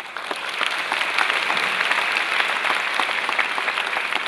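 Audience applauding, many hands clapping at once; the applause swells in the first second, then holds steady.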